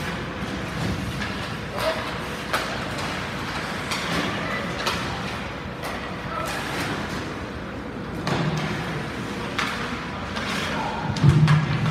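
Ice hockey play in an indoor rink: scattered sharp knocks of sticks, puck and boards over a steady rink hum, with spectators' voices in the background. A louder, lower burst comes near the end.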